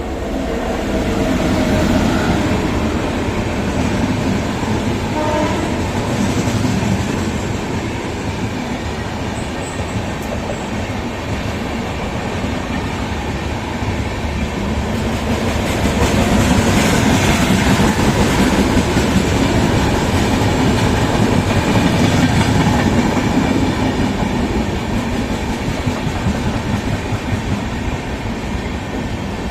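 Indian Railways express train running on the rails: a loud, steady rumble and clatter of wheels and coaches that builds over the first couple of seconds and stays continuous, a little louder past the middle.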